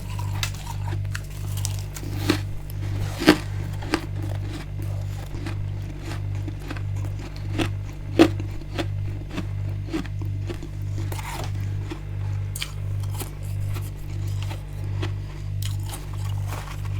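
Close-miked crunching and crackling of frozen freezer frost being bitten and chewed, with a few sharper crunches about two, three and eight seconds in. A steady low hum pulsing evenly in the background.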